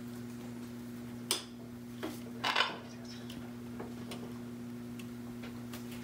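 A few light clicks and knocks as an Alexandrine parakeet shifts and steps along a wooden play-stand perch, the loudest cluster about two and a half seconds in, over a steady low hum.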